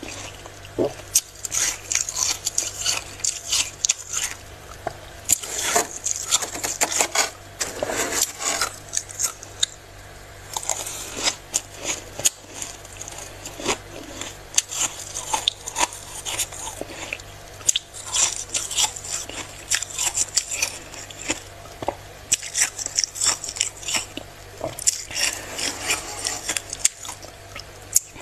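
Spoon scraping and crunching through packed freezer frost: a dense run of crisp, gritty crunches and crackles with short pauses, over a faint low steady hum.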